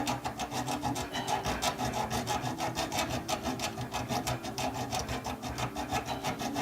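Hacksaw blade sawing through a pipe end in rapid, even back-and-forth strokes.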